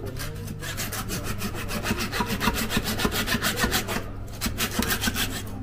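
Fast rhythmic sawing: a blade worked back and forth through a large bluefin tuna, about eight rasping strokes a second, with a short break about four seconds in.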